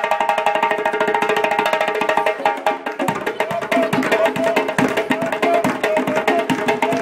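Hand-drum ensemble of djembes and a pair of congas played fast, dense interlocking strokes. About three seconds in the playing dips briefly, then deeper drum strokes join.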